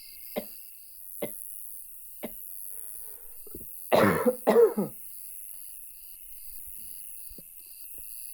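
A man's hacking cough: three short single coughs about a second apart, then two loud barking coughs in quick succession about four seconds in, part of a coughing fit he cannot hold back.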